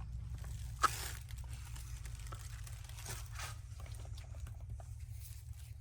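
Handling noise of firework packaging: rustling and crinkling with small clicks, a sharp knock about a second in, over a steady low hum.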